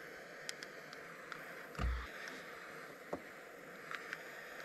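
Faint steady hiss of a small butane torch shrinking heat-shrink butt connectors onto spliced speaker wires. Light handling clicks run throughout, with a soft bump about two seconds in.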